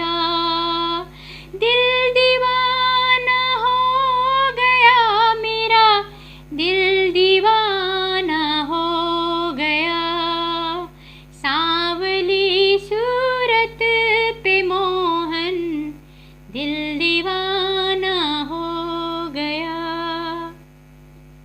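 A woman singing a Hindi song melody in long, ornamented phrases over a steady low drone, with brief pauses between phrases.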